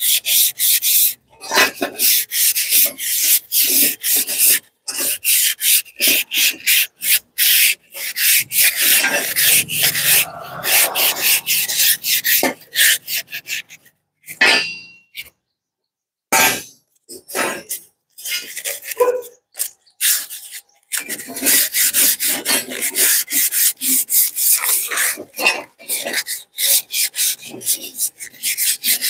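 Hand-sanding a rusty steel car suspension coil spring: fast, repeated scraping strokes of an abrasive along the coils, stripping rust and old paint for repainting. The strokes pause briefly about halfway through, then resume.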